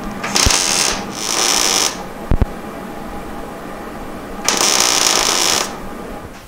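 MIG welder arc crackling in three short bursts, the second close after the first and the third longer, welding a seam between two pieces of sheet steel with the wire laid down into the gap. A couple of sharp clicks fall between the second and third bursts, over a steady low hum.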